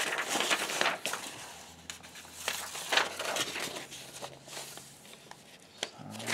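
Paper sheets of an instruction manual rustling and flapping as the pages are handled and turned by hand, loudest in the first second, then softer.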